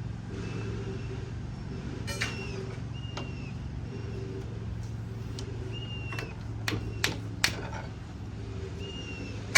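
An engine running steadily with a low hum, with a few sharp clicks and knocks and several short high chirps that fall in pitch.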